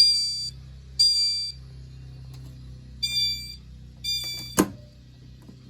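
Fire alarm sounder going off in the temporal-three pattern: half-second electronic tones, each starting loud and fading, in a group of three, a pause, then two more. The alarm was set off by candle smoke reaching a smoke detector. A loud thump comes near the end, and the tones stop.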